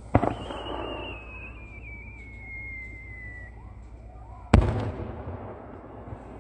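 Two aerial firework shells bursting with sharp bangs about four and a half seconds apart, each trailing off in echo. A high whistle falling slowly in pitch follows the first bang.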